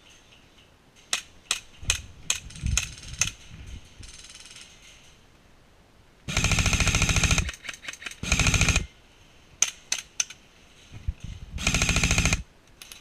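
Airsoft electric gun firing three full-auto bursts: a rapid, even mechanical rattle, the first burst about a second long and the next two shorter. Before them come a few scattered sharp clicks and cracks.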